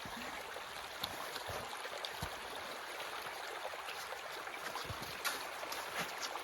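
Snowmelt and rain runoff running steadily along a hand-cut ditch channel, a constant rushing of water with a few faint clicks mixed in.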